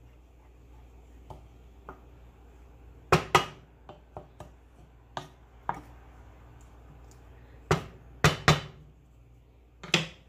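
Wooden spoon knocking against the side of a stainless steel pot while stirring a thick simmering sauce: a scattered series of sharp knocks, some in quick pairs.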